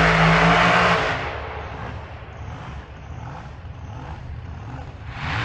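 Drag race car engine running loud at high revs, falling away about a second in; near the end a loud engine starts up again.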